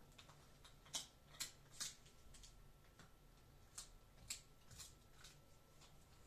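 Faint, short scratchy rustles as a dog noses into a red fox's fur on a fluffy blanket: three quick ones about a second in and a few more past the middle, over a faint steady hum.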